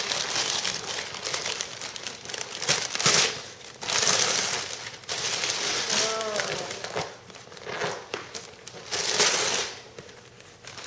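Gift wrapping paper and packaging crinkling and rustling in repeated bursts as presents are handled and unwrapped.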